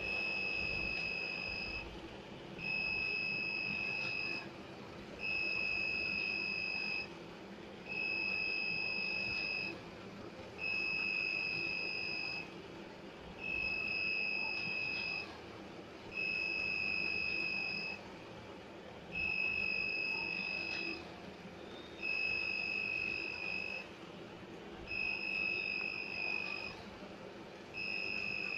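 Electronic buzzer on an Arduino model railway-crossing gate circuit, sounding a high steady beep about two seconds long, again and again with short gaps, about eleven times.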